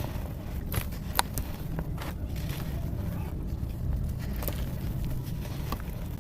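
Dry, gritty pieces of red dirt and coal crunching and crumbling, with a few sharp snaps around a second in and two more later, over a steady low rumble.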